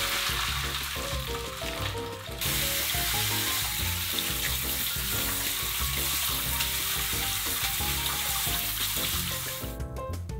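Boiled udon and its cooking water poured from a pot into a mesh strainer in the sink, then a pull-out faucet spraying water over the noodles in the strainer: a steady hiss that breaks briefly a couple of seconds in and cuts off suddenly near the end. Soft background music plays underneath.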